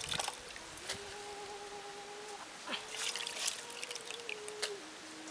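Hands sloshing and rummaging through live June beetles in a bowl of water and a plastic basket: short splashes and rustling clatters a few times. Under them runs a steady hum that wavers slightly and drops lower near the end.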